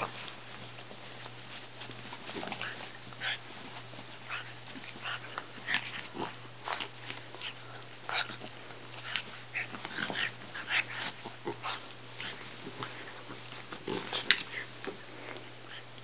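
Two dogs, one a Boston terrier, play-wrestling on a bed: short, irregular breathy noises and scuffles, one after another, over a low steady hum.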